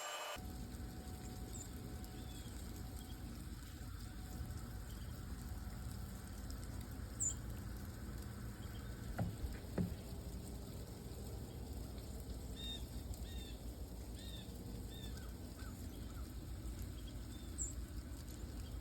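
Outdoor ambience in a snowstorm: a steady low rumble with light pattering. Short high chirps are scattered through, clustering in the second half, and there are two soft thumps near the middle.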